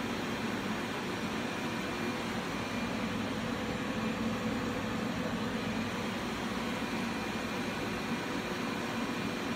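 Steady whirring hum of the cooling fans of laser test equipment, even and unchanging, with a low hum underneath and a faint thin high whine.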